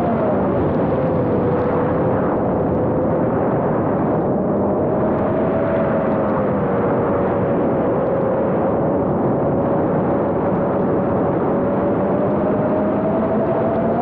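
Motors and propellers of a 5-inch FPV quadcopter whining steadily over heavy air rush on the onboard camera's microphone. The pitch drifts gently up and down with throttle and rises near the end.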